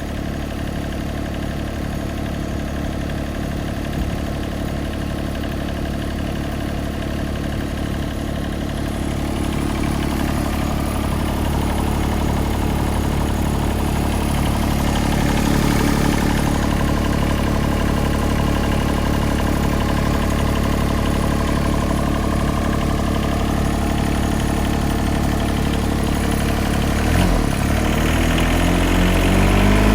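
Yanmar SV18 mini excavator's diesel engine idling steadily, then revving up to a higher, steady speed near the end.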